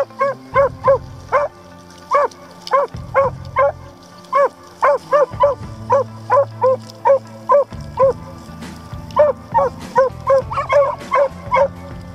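Beagle Harrier hounds giving tongue as the pack runs: short, ringing cries repeated two to three times a second, pausing briefly twice. Background music with low sustained chords runs underneath.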